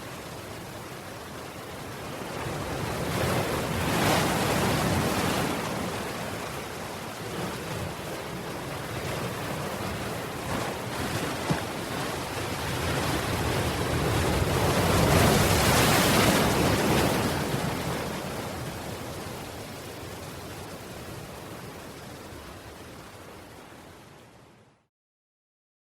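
Ocean waves surging and washing in: two large swells about eleven seconds apart over a steady surf hiss, then the sound fades out to silence near the end.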